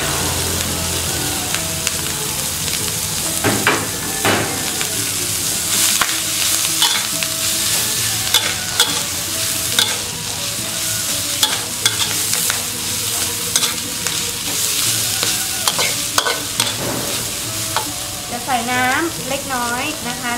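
Chopped leafy greens sizzling in a hot aluminium wok as they are stir-fried, with irregular scrapes and clanks of a metal spatula against the pan.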